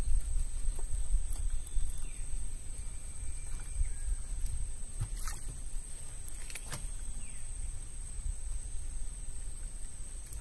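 Low, uneven rumble of wind buffeting the microphone, with a few faint clicks and taps while a fishing handline is pulled in by hand.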